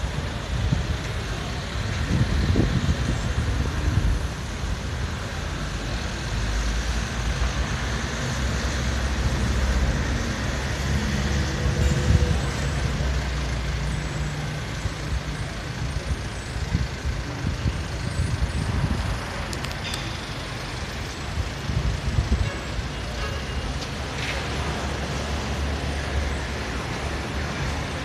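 City road traffic: a steady low rumble of vehicle engines and tyres, swelling now and then as vehicles pass.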